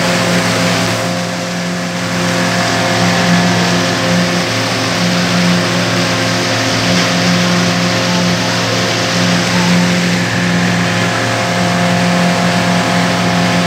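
Pontoon boat's motor running steadily under way, a constant engine hum with a steady hiss of wind and water over it.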